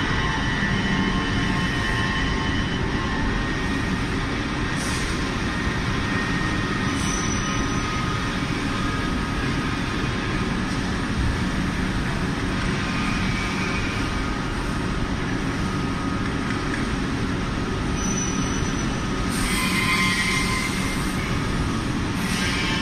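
CNC stretch bending machine running: a steady mechanical rumble and hiss with faint, high squealing tones, changing little throughout.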